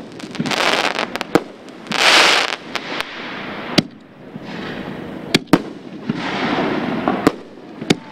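A 6-inch Holy Grail canister shell from Pyro Demon breaking in the air: a string of sharp reports at irregular intervals, some in quick pairs, with stretches of hiss between them.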